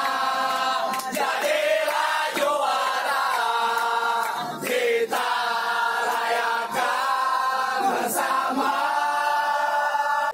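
A crowd of football supporters singing a terrace chant together inside an airliner cabin, many voices in long held phrases with short breaks between them.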